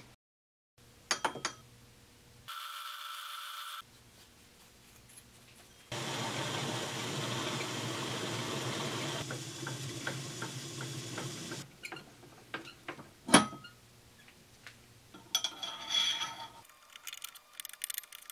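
Homemade Gingery metal lathe running for several seconds with a steady hum, while a hand-held abrasive strip works the spinning steel spindle. Around it come a few metal clicks, a sharp clink a little past halfway, and a short burst of shop noise near the end.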